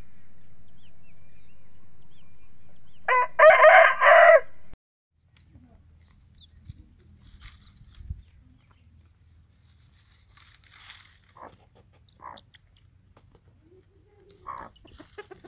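Rooster crowing once, loud, about three seconds in and lasting about a second and a half, over a steady low hum that stops suddenly just after. Faint short clucks follow.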